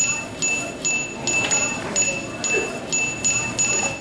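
A flash mental-arithmetic program beeps once for each number it flashes on screen: about a dozen short, high electronic beeps, roughly three a second. They stop just before the end as the number sequence finishes.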